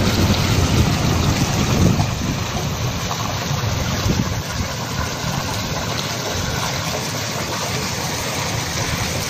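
Steady outdoor noise: a low, uneven rumble under a broad hiss, with no distinct events.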